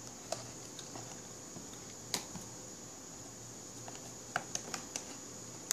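Cardboard doll box being handled and worked open by hand: scattered light clicks and taps, a quick cluster of them near the end, over a faint steady high-pitched whine.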